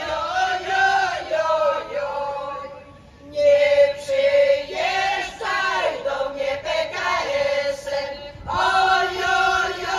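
Women's choir singing in unison, with a short breath pause between phrases about three seconds in before the next phrase starts.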